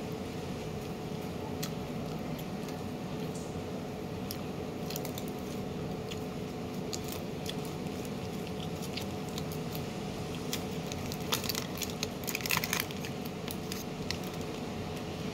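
Aluminium foil wrapper crinkling as it is handled and opened, with scattered crackles that come thickest near the end, over a steady low hum.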